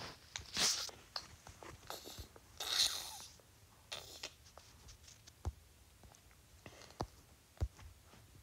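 Faint handling noise from a tablet in use: short rustles in the first few seconds, then a few light taps.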